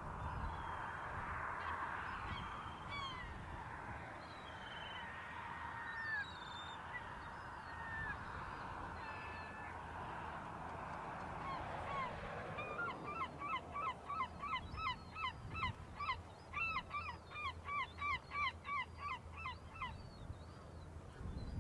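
A bird calling in a fast run of repeated pitched calls, about three a second, starting about halfway through and stopping shortly before the end. Short high chirps from other birds come and go over a steady outdoor hiss.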